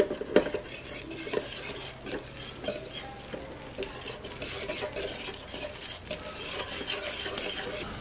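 Wire whisk scraping and clicking against a stainless steel pan in quick, irregular strokes as flour is stirred into sautéing onions and jalapeños, with the butter sizzling underneath.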